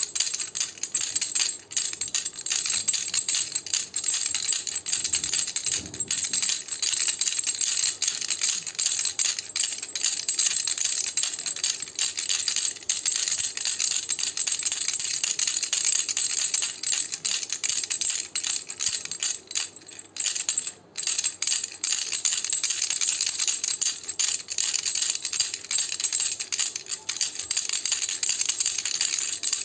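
Baby rattle (jhunjhuna) shaken continuously, a dense, fast rattling, with a brief pause about twenty seconds in.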